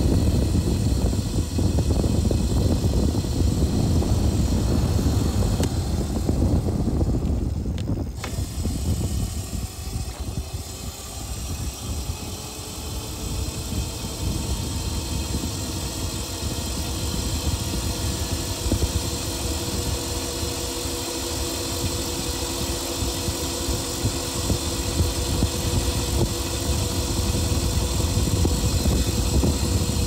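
Road traffic passing: a vehicle's low rumble that fades about ten seconds in, followed by a steadier hum of several tones.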